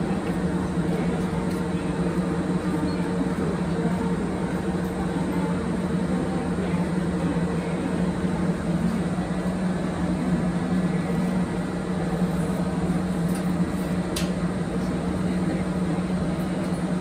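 Steady electrical hum from a stationary Kintetsu electric train, with one low tone held throughout. A faint light click comes about fourteen seconds in.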